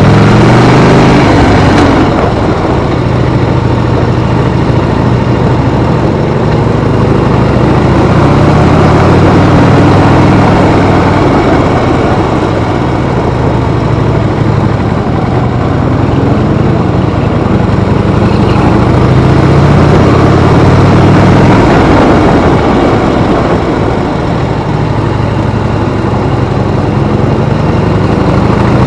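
Harley-Davidson motorcycle's V-twin engine running loud under way, its pitch rising and falling slowly as the throttle opens and closes.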